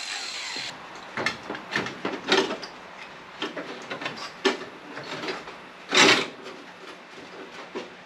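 Hand tool scraping and rubbing against car-body sheet metal in short, irregular strokes, with one louder, longer scrape about six seconds in.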